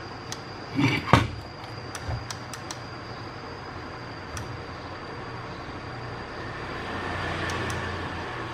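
Transformer soldering gun humming low and steadily during soldering on a circuit board, with a few sharp clicks and a brief clatter of handling about a second in.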